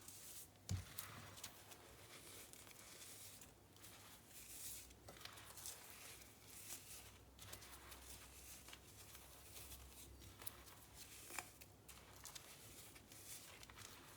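Packed cornstarch and baking soda powder squeaking and crunching as it is squeezed, in short irregular squeezes, with a sharp low thump about a second in.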